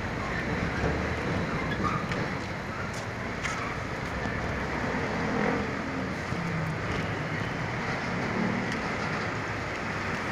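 Steady road traffic noise from cars and trucks passing on the street alongside.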